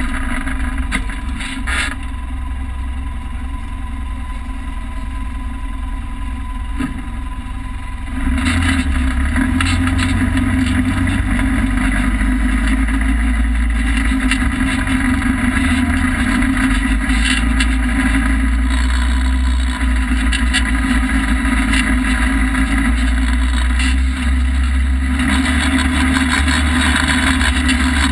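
Polaris RZR side-by-side under way on sand: a steady engine drone with a hiss of wind and rattles through the open cab. The engine gets louder about eight seconds in and holds there.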